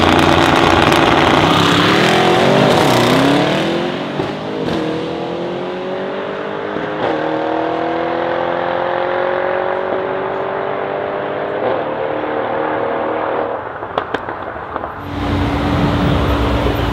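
Two Mercedes-AMG E63 S sedans, one a Brabus 800, launching hard side by side on twin-turbo 4.0-litre V8s and accelerating away, the pitch climbing and dropping back through several upshifts as they fade into the distance. Near the end a V8 idles steadily close by.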